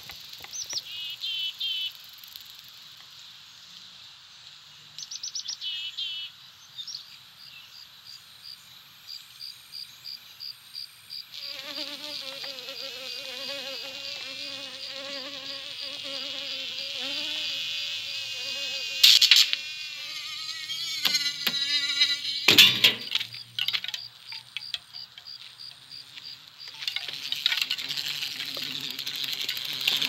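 Animated-film insect sound effects: buzzing wings and chirps over a regular high ticking, with a wavering pitched buzz from about a third of the way in that lasts around ten seconds. Two sharp hits come near the middle, and the sound grows denser near the end.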